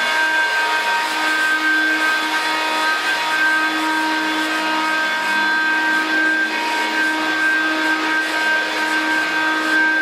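Hoover Dial-A-Matic 1140 upright vacuum cleaner running steadily, a continuous motor whine with several steady tones over the rush of air.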